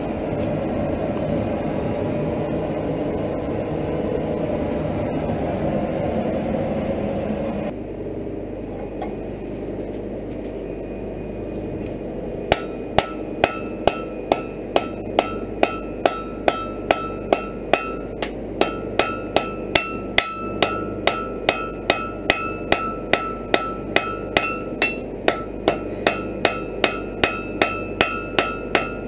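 A forge fire burning with a steady rush; then, about twelve seconds in, a hand hammer starts striking red-hot steel on an anvil at about two blows a second, each blow ringing, as a fire poker is hammered out.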